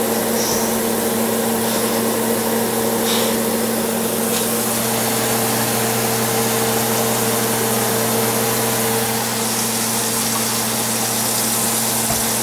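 Kitchen range hood exhaust fan running steadily: an even hum with an airy hiss. One of its higher hum tones drops away about nine seconds in.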